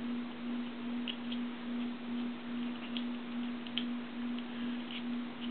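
A steady, even-pitched electrical hum that swells and fades slightly about twice a second, with faint scattered small clicks and taps.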